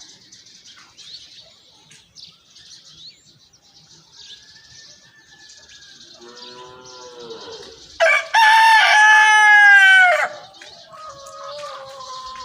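Rooster crowing loud and long for about two seconds, most of the way through, after a lower, shorter crow; another crow begins near the end. Under it, steady high-pitched chirping of small birds, the baby sparrows.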